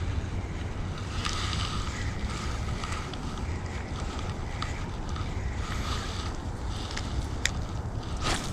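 Wind buffeting the microphone over the steady rush of river water, with a few sharp clicks near the end.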